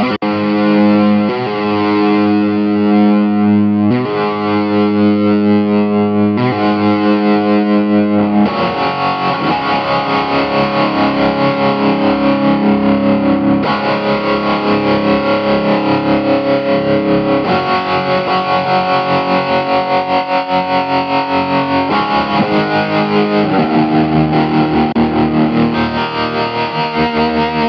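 Electric guitar played through an M-Vave Tank-G multi-effects pedal on a distorted preset. Held chords ring for the first eight seconds or so, then give way to faster rhythmic picking with an even pulse of about two or three notes a second.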